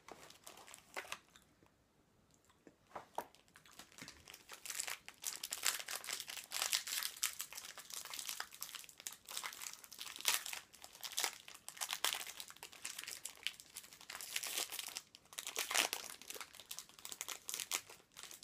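Foil wrapper of a packet of chocolate biscuits being crinkled and unwrapped by hand. A few light clicks of the cardboard box come first, then dense crinkling starts about four seconds in and goes on, rising and falling.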